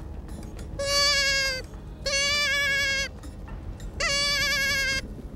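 A predator game call sounding three wavering, bleat-like distress cries, each about a second long with abrupt starts and stops. It is the lure used to draw coyotes in.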